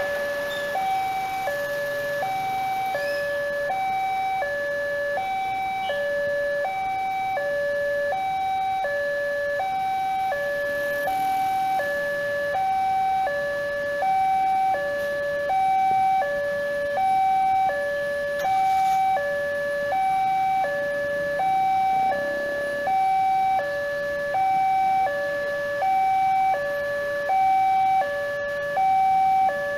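Railway level crossing's electronic warning alarm: two tones, a higher and a lower, alternating steadily about every second and a half, warning that a train is coming while the barrier is down. The higher note sounds louder in the second half, with faint road traffic underneath.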